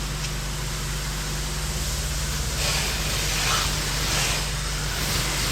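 Pressure washer's gas engine running steadily, with swells of water spray hissing from the wand starting about two and a half seconds in.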